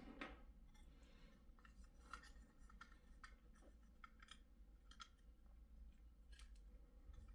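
Faint scattered clicks and scratches of a small six-point screwdriver turning a tiny screw out of a USB drive enclosure.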